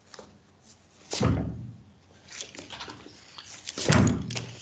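Two dull thumps, about three seconds apart, with light clicking and rustling between them.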